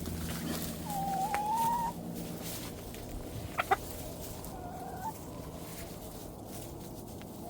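Backyard hens clucking: one drawn-out call with a slight rise about a second in, and a shorter call near the middle. Two sharp clicks come close together around halfway.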